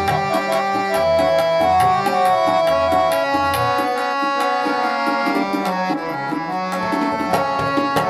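Two harmoniums and a tabla playing an instrumental interlude of Sikh shabad kirtan: a held, sustained reed melody over fast tabla strokes, with deep bass-drum thumps from the bayan mostly in the first half.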